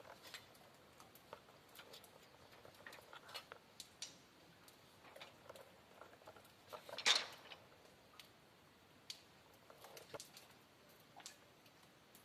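Faint, irregular clicks and scuffs, with one louder scuff about seven seconds in.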